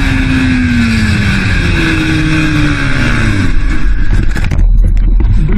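Motorcycle engine over heavy wind noise, its note falling twice as the bike slows. About four seconds in, the bike leaves the track into grass, with a few knocks and then a heavy low rumble.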